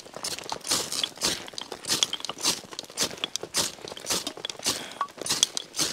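Fire steel scraped in quick repeated strokes, about two a second, throwing sparks onto a wax-dipped cardboard firelighter that has not yet caught.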